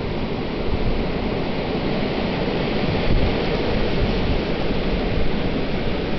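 Blizzard wind blowing hard: a steady rushing noise that swells a little in gusts.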